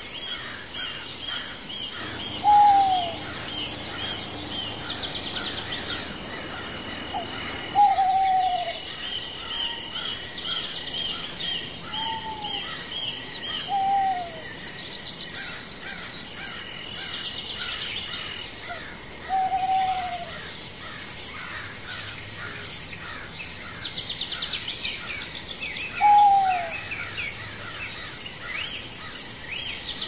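Tropical forest ambience: a steady high insect whine and regularly pulsing insect chirps under constant bird twittering. A short falling call, the loudest sound, comes six times, a few seconds apart.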